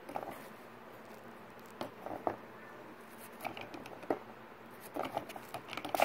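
Light clicks and taps of a small plastic doll being handled on a plastic toy slide, coming in scattered little clusters with the loudest near the end.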